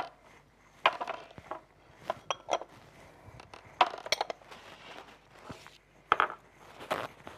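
Small bowls and ramekins being picked up and set down on a countertop: a scattered series of clinks and knocks, a few briefly ringing.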